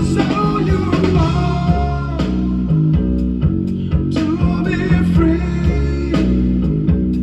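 Guitar-driven rock music with bass and a steady beat, played back from a cassette recording on a Nakamichi BX-100 two-head cassette deck.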